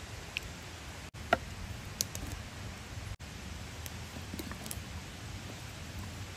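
Hands working marinade into whole trout in a wooden bowl, then a knife scoring the fish's skin: small wet clicks and taps, the sharpest about a second in, over a steady hiss.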